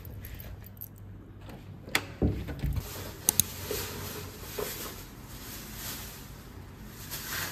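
Handling noise: a couple of dull knocks about two seconds in and two sharp clicks just after, then soft rustling of a plastic packet being held.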